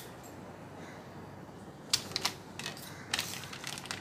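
Faint kitchen room tone, then from about two seconds in a string of light, irregular clicks and taps from scissors and a dried-fish packet being handled on a wooden chopping board.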